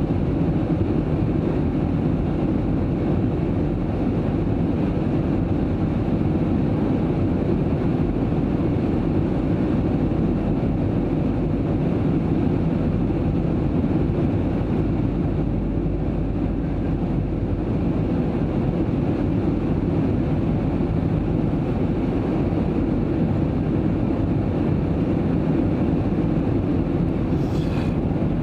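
Steady cabin noise of an Airbus A320-family airliner in flight: a constant low drone of engines and airflow heard from inside the passenger cabin, with a faint steady hum in it.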